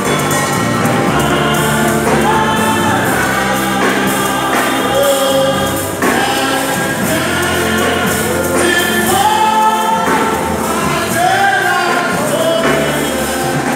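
Live gospel worship singing: a lead singer with backing singers, all on microphones, amplified through the church sound system.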